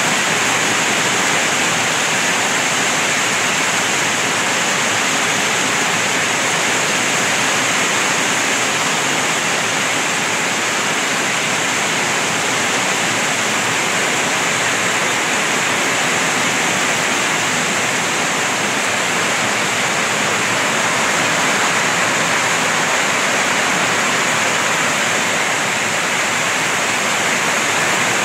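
Heavy typhoon rain pouring down without a break, a dense, steady hiss of water.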